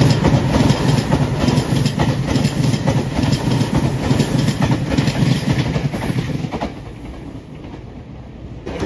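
JR Shikoku 8000 series electric limited-express train passing through a station at speed: a loud rumble with the wheels clacking over rail joints at a regular beat. The noise drops away suddenly about two-thirds of the way through as the last car goes by, leaving a fainter rumble of the receding train.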